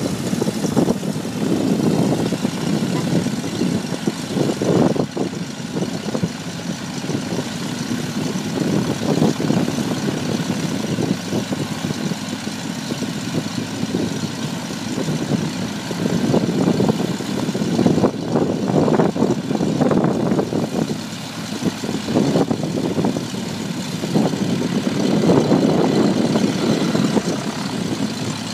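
Zenith STOL CH 750 light aircraft's propeller engine running, its level swelling and fading every few seconds.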